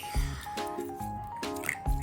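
Background music with a steady beat and a simple stepping melody.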